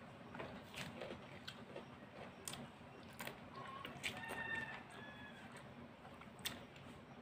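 Faint eating sounds of rice being eaten by hand: small wet clicks and lip smacks from chewing and fingers working the rice. A few short pitched calls sound about four to five seconds in.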